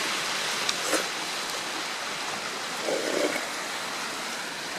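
A steady rushing hiss, with a couple of light clicks about a second in and a brief slurp about three seconds in as miso soup is sipped.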